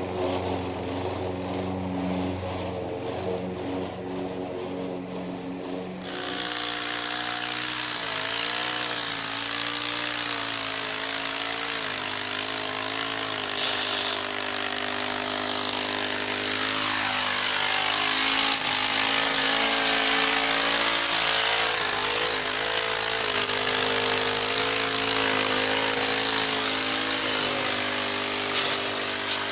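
Old Toro Recycler walk-behind mower running while mowing. About six seconds in, a loud harsh grinding sets in over the engine and continues, with the engine pitch wavering under load; the uploader puts the grinding down to a bad transmission.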